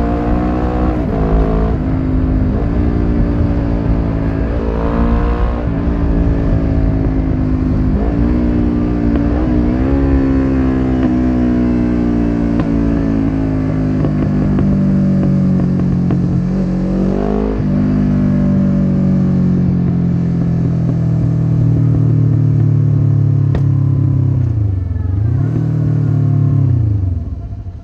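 1993 Suzuki GS500E's air-cooled parallel-twin engine on a Takkoni slip-on exhaust with the dB killer fitted, ridden hard: revs climb and drop through several quick gear changes, then hold steadier. Near the end the revs dip and rise once before the sound fades out.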